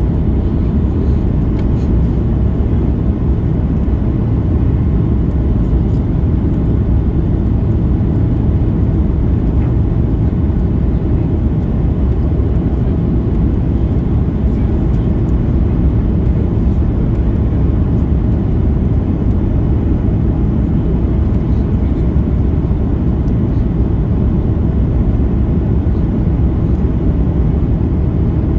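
Steady cabin noise inside a Boeing 737 MAX 8 on final approach: an even, low rumble of its CFM LEAP-1B engines and the airflow past the fuselage, with no changes.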